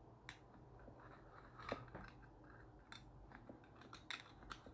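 Faint, scattered small clicks and light scrapes from a pocket watch and small tools being handled, about five in the few seconds, with near silence between them.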